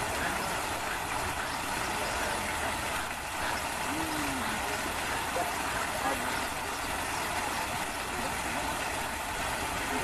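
Steady outdoor background noise with faint, indistinct voices of people talking.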